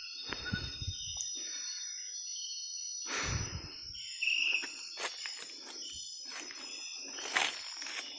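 Tropical forest ambience: a steady high insect drone, with footsteps and rustling through undergrowth, a few sharp snaps, and a couple of short high chirps.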